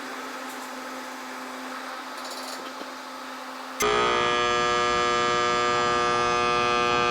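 Air conditioner's outdoor unit with its fan running steadily. About four seconds in, a loud steady electrical buzz starts suddenly and holds: the compressor trying to start and failing. The technician suspects a faulty start capacitor or a shorted compressor.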